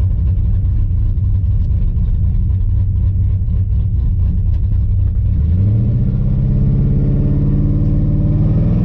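LS-swapped Chevrolet S10's 5.3-litre V8 running on a test drive, its note stepping up in pitch about five seconds in and then holding steady. The engine still has the misfire being chased, which the owner can tell is not right.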